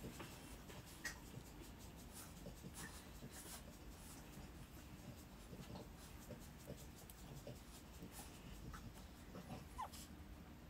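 Newborn French bulldog puppies giving a few faint, brief squeaks, with scattered soft clicks over a low, steady background.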